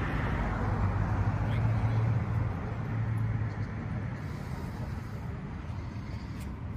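A vehicle engine running at low speed: a steady low hum that is strongest in the first few seconds and then fades away.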